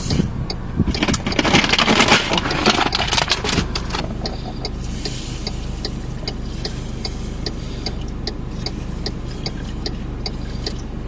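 Clattering and rustling of things being handled, then, about three and a half seconds in, a car engine starts and idles steadily, with a light regular ticking about twice a second over it.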